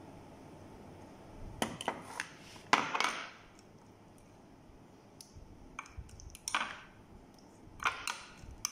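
Clinks and short scrapes of a utensil against a small bowl as spice-paste marinade is scraped out onto raw chicken pieces, in two clusters: one about a second and a half in, the loudest, and another from about six seconds in.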